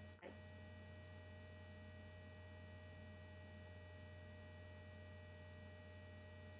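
Near silence: a steady low electrical hum with faint steady higher whine tones, briefly dropping out about a quarter of a second in.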